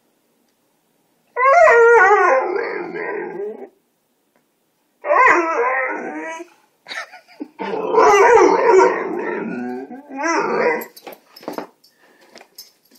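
Small terrier howling in four loud calls with wavering pitch, alerting to a cat in the yard. A few light clicks follow near the end.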